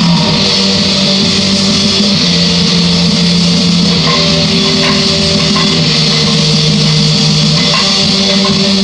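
Loud rock music with electric guitar and bass guitar, its held chords changing every couple of seconds.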